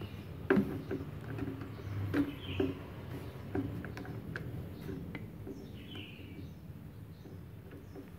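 Clicks and knocks of a detachable MIG torch cable's plug being pushed into the front socket of a small inverter welder and screwed tight, sharpest in the first few seconds, then quieter handling. Two faint bird chirps come through.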